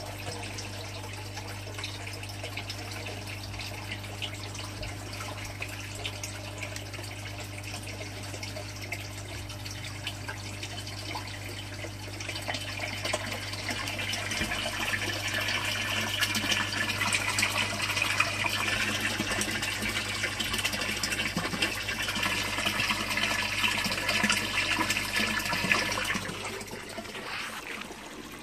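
Water pouring from a white PVC return pipe into an aquaponics fish tank, a steady splashing that grows louder about halfway through, with a low steady hum underneath. Near the end it gives way to a quieter trickle of water spilling from a pipe outlet into a pond.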